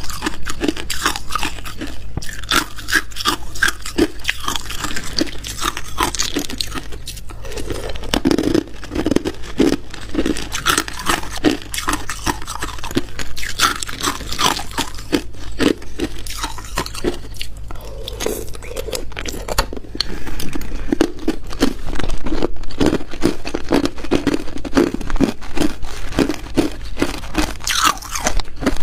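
Hard ice being bitten and chewed close to a small clip-on microphone: loud, continuous crunching made of many sharp crackles in quick succession.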